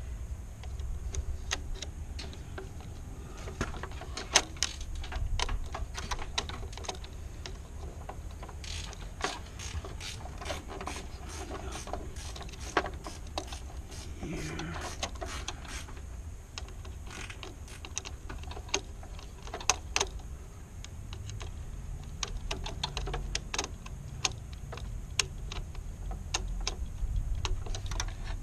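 Irregular small clicks and ratcheting of a hand tool working the wire terminal screws of a pool timer, over a low background hum.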